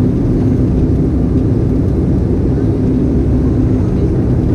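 Sukhoi Superjet 100 airliner cabin noise: a steady, loud rumble of its turbofan engines and airflow, with a constant low hum running through it.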